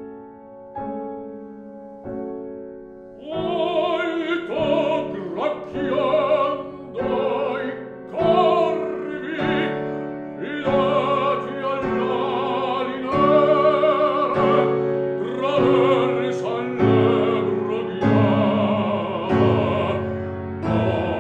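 Classical art song for baritone and piano: the piano plays alone at first, then a baritone voice enters about three seconds in and sings with vibrato over the piano accompaniment.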